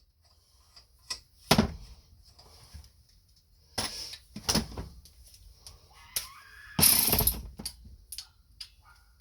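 Hand tools and metal parts being handled: scattered sharp clicks with a few louder clunks and knocks, one lasting about half a second near 7 seconds in.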